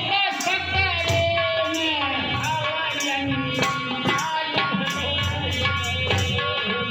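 Devotional bhajan music with a steady percussion beat under sustained melodic instruments.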